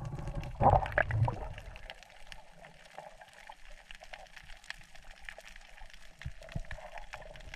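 Underwater sound picked up by a camera on a diver over a reef: water swishing and gurgling, loudest about a second in, then a quieter hiss with many short scattered clicks.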